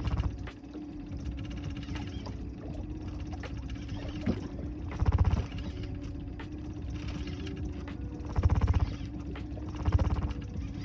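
Fishing reel clicking rapidly in short bursts, several times, as a fish is played on a bent rod, over a steady hum.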